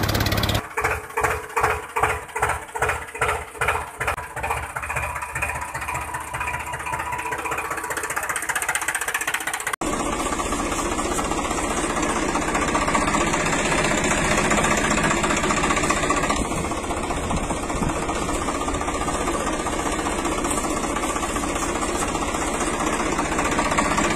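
Tractor engine chugging in a regular beat of about two a second that slowly fades, then a sudden cut about ten seconds in to the engine running steadily.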